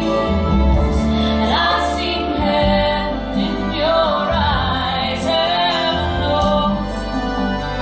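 Music: a song with a woman singing long, gliding phrases over sustained backing and bass notes.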